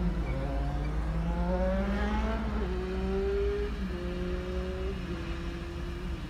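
A car engine revving up, its pitch rising for about two and a half seconds, then holding steady and stepping down a little a few times, over a steady low rumble.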